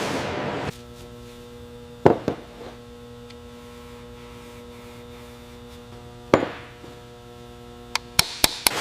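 Steady machine hum in a metalworking shop, broken by sharp metallic knocks: two about two seconds in, one a little past six seconds, and four quick clicks near the end.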